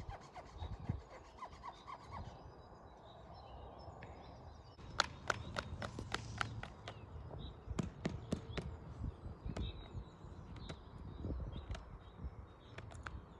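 Outdoor ambience with faint bird chirps and a low wind rumble, then from about five seconds in a run of irregular sharp clicks and taps.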